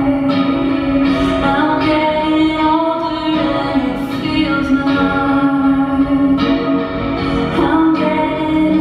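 Live band playing a song, a voice singing held notes over amplified instruments.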